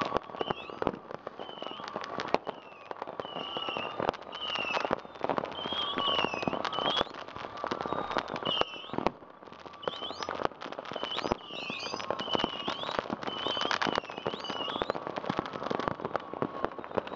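Fireworks and firecrackers going off non-stop: many sharp bangs and crackles overlapping at uneven intervals, with warbling whistles sounding again and again among them.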